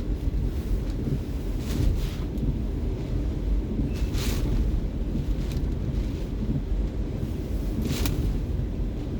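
Hurricane wind battering the microphone: a deep, steady rumble, with short hissing surges about two, four and eight seconds in.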